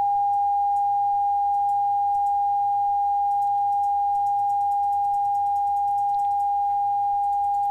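Steady 800 Hz sine-wave test tone from a computer tone generator, holding one pitch at an even level. It is the test signal being fed into an Icom IC-7300's transmit audio to check modulation levels.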